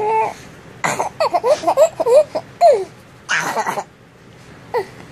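Baby vocalizing: a string of short coos and squeals that rise and fall in pitch, mixed with breathy huffs, fussy and playful rather than full crying.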